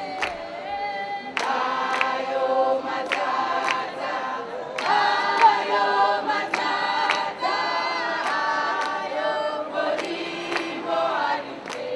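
A group of women singing together unaccompanied, in chorus, with hand claps keeping the beat a little under twice a second.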